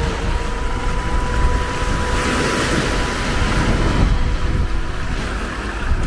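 Small waves washing onto a sandy beach, with wind rumbling on the microphone; the wash swells about two seconds in and eases off again.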